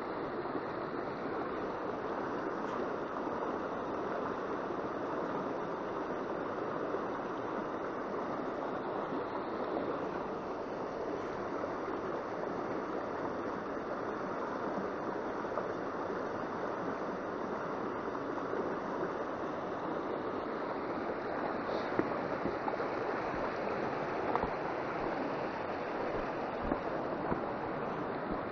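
Shallow mountain stream rushing steadily over rocks and through riffles. A couple of faint clicks come about two-thirds of the way in.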